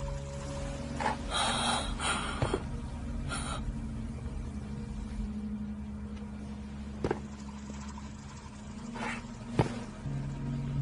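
Low steady hum of a film soundtrack, with a few short breathy rushes of noise in the first few seconds and two sharp clicks later on.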